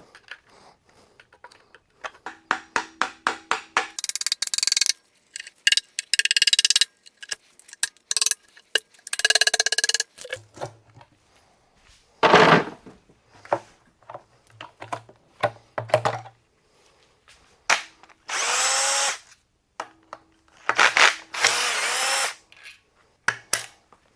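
A power tool run in short bursts of a second or two, taking fasteners off an engine being torn down, with runs of rapid clicking and metal clinks and knocks from parts and tools between the bursts.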